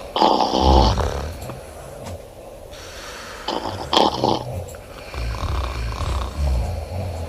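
A woman snoring loudly: two loud snores about three seconds apart, with quieter low snoring sounds between them.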